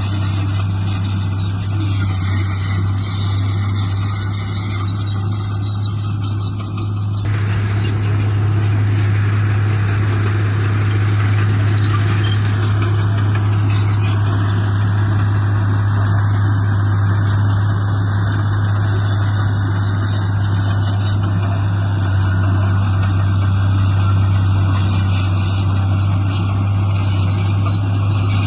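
Heavy diesel earthmoving machinery running steadily with a constant low engine hum; the noise fills out and grows a little louder about seven seconds in.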